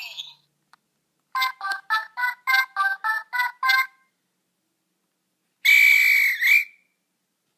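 A toy sports sound-effects machine playing its sounds through a small speaker: a short electronic tune of about nine quick notes, then, a moment later, a single held whistle-like tone that bends at its end.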